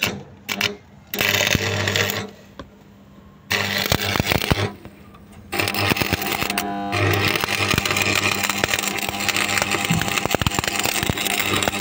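Electric arc welding on the cylinder head of a Renault Clio 3 1.5 dCi diesel engine, working on a part stuck in the head to free it. The arc crackles in three runs with a steady hum underneath: a short burst about a second in, another a couple of seconds later, then one long unbroken run.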